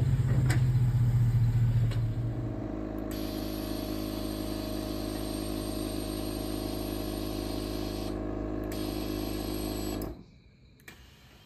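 Steady motor hum with a low drone. It is louder for the first couple of seconds, then settles and stops suddenly about ten seconds in.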